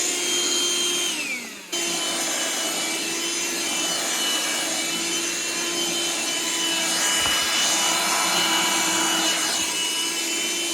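Vacuum cleaner motor running with a steady whine. About a second in it is switched off and its pitch starts to fall, then it is switched straight back on and runs steadily.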